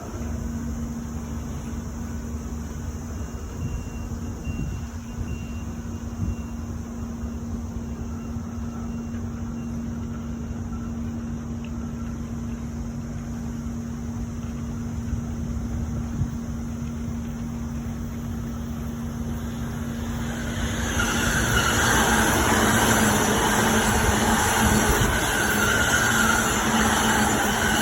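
Keihin-Tohoku Line electric train running: a steady low rumble with a constant hum, growing louder about 21 seconds in with a rushing, hissing noise.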